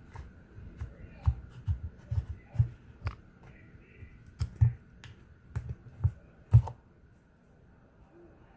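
Slime being squeezed and pressed by hand, giving an irregular run of sharp wet pops and clicks that stop about seven seconds in.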